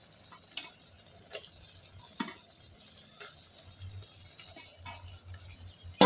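Drumstick pieces being dropped by hand into a pot of simmering tomato mixture: a few light, irregular taps and soft plops over the faint steady hiss of the cooking pot.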